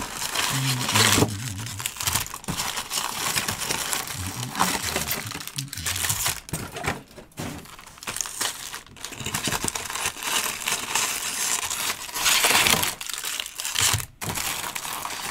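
Foil-wrapped trading-card packs crinkling and rustling as they are lifted out of the box and stacked by hand, in irregular bursts.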